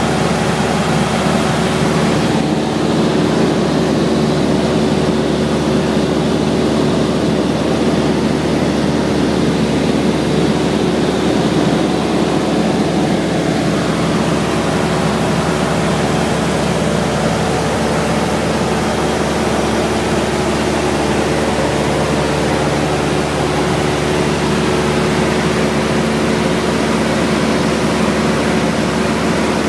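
Cessna 172's piston engine and propeller droning steadily in cruise flight, with the rush of air over the airframe, heard from inside the cabin.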